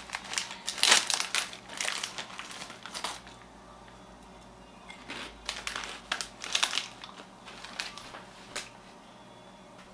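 A Flamin' Hot Cheetos snack bag crinkling loudly as it is opened and handled for about three seconds, then a few short, quieter crackles as the chips are eaten.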